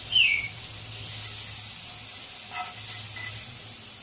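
Butter melting and sizzling in a hot nonstick frying pan, a steady hiss. A brief high falling chirp sounds at the very start.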